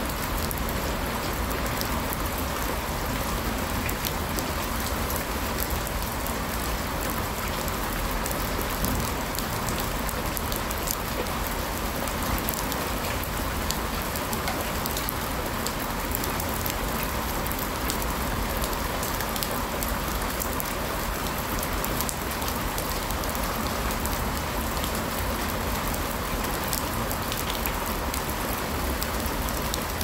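Steady rain falling, an even hiss with scattered faint ticks of individual drops.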